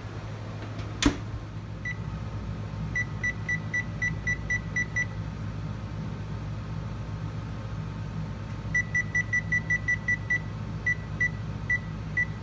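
Frigidaire oven control panel beeping at each key press while the timer is stepped up: one beep, a run of about eight quick beeps, a pause, then a faster run and a few spaced single beeps. A single sharp knock about a second in, as the oven door shuts.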